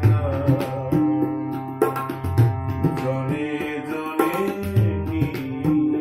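Tabla and harmonium playing together: the harmonium holds sustained notes and melody while the tabla keeps a steady rhythmic pattern, with deep resonant strokes from the bayan bass drum.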